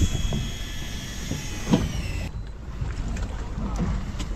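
A small electric motor whines steadily, its pitch dropping slightly just before it cuts off about two seconds in, over the low rumble of the boat and wind. Two dull thumps stand out, one at the start and a louder one a little under two seconds in.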